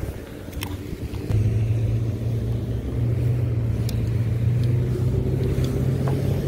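A steady low engine hum that grows louder about a second in and then holds an even pitch, with a few faint clicks.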